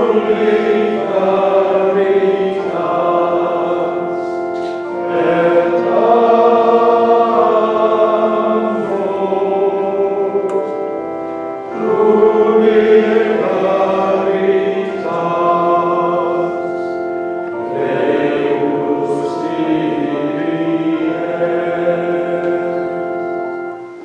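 A choir of monks singing together in long phrases with short breaths between, over held organ chords. The singing and organ stop near the end.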